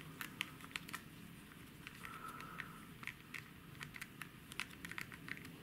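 Faint, irregular small clicks and ticks of a precision screwdriver working a stubborn tiny screw in the plastic frame of camera glasses.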